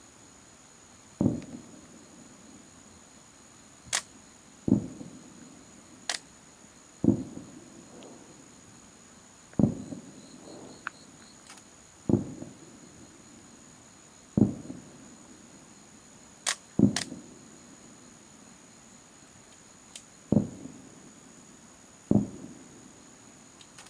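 Aerial firework shells bursting: a deep boom every two to three seconds, each rolling away in an echoing rumble, with a few sharper, higher cracks in between. A steady high insect trill runs underneath.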